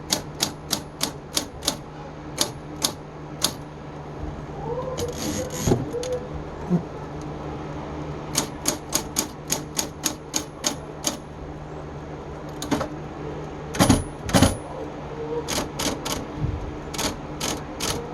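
Sears The Electric 1 electric typewriter being typed on: runs of sharp keystroke strikes, a few a second, with pauses between them, over the steady hum of its running motor. Two heavier thumps come about two-thirds of the way through.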